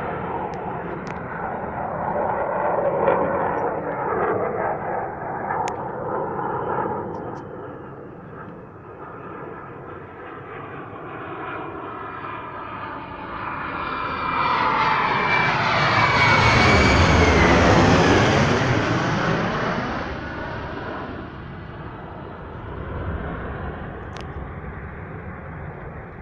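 F-35A Lightning II's F135 jet engine as the fighter flies past. Its noise swells to a peak about two-thirds of the way in as it passes overhead, its pitch dropping as it goes by, then fades as it moves away.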